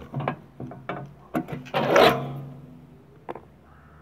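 A thin sheet-metal strip on a brick chimney top is handled: a run of clicks and scrapes, then a louder metallic ring about two seconds in that dies away over about a second, and a last click near the end.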